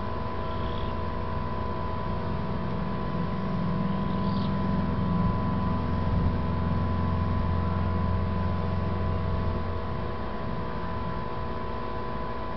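A low motor rumble swells about two seconds in and fades away near the end, over a steady hum.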